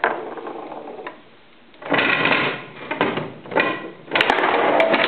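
Table football game in play: rods and plastic figures clattering in quick rattling runs, with a few sharp clicks of the ball being struck near the end.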